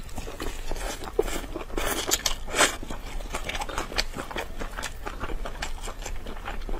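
Close-miked eating of saucy braised meat on the bone: wet biting and chewing, with irregular clicks, smacks and crackles, busiest a couple of seconds in.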